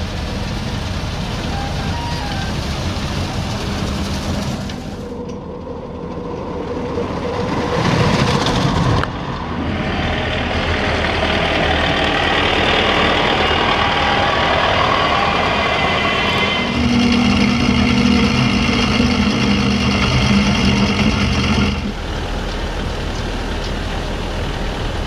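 Tractors and tractor-mounted tulip-topping machinery running through a tulip field: steady engine and rotating-cutter noise that changes abruptly several times.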